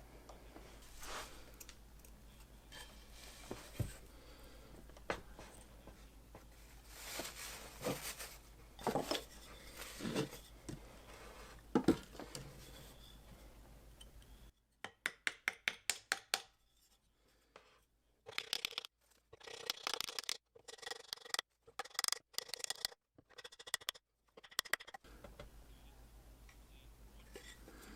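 Hand-tool work fitting a small hatchet head onto its wooden handle: scattered scrapes and knocks, then about ten seconds of quick, sharp taps in bursts from the middle on.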